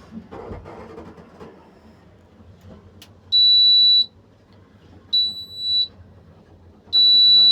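Electronic beeper of a modernized Delma elevator by Otis sounding three long, high, steady beeps, each a little under a second and repeating about every two seconds from about three seconds in.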